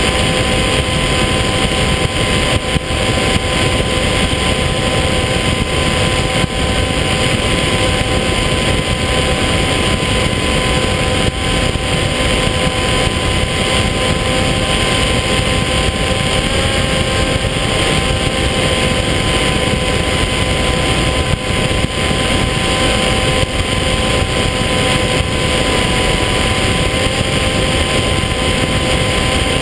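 Electric motor and propeller of a radio-controlled FPV plane, heard from on board in flight: a steady whine over loud wind rush, its pitch lifting briefly about halfway through.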